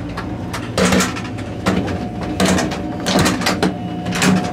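Steady running hum inside a Deutsche Bahn ICE high-speed train, with a thin steady tone over a low rumble, broken by five short scuffing, clattering bursts under a second apart.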